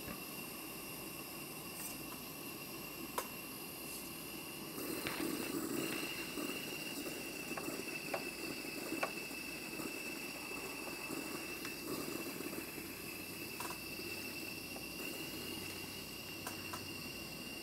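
Live steam model locomotive with its throttle cracked open at just under 20 psi: steam hissing and spitting through cold cylinders that are still warming up, over the steady rush of the gas blowlamp firing the boiler. About five seconds in the hiss grows louder and a thin steady high whistle joins it, with scattered small clicks and ticks.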